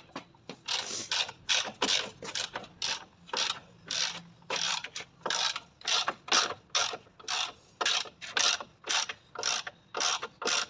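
Socket ratchet wrench clicking in quick back-and-forth strokes, about two a second, as a bolt on the car's front subframe is worked loose.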